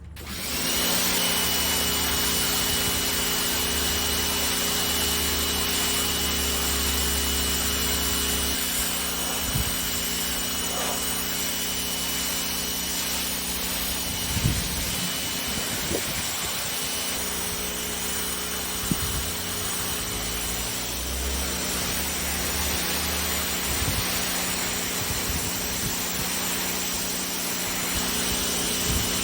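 Pressure washer starting up within the first second and then running steadily: a hiss of high-pressure water spray over a steady pump hum, with a few brief knocks partway through.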